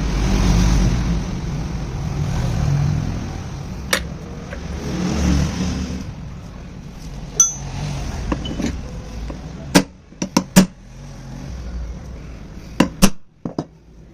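Low rumbling noise for the first half, then a scatter of sharp knocks and clinks, some in quick pairs, loudest near the end.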